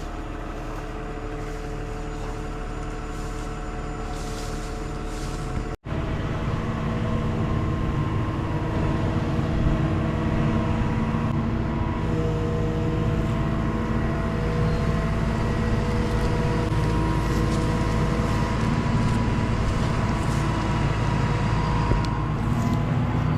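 An engine running steadily at a constant speed. It breaks off abruptly for a moment about six seconds in and comes back louder.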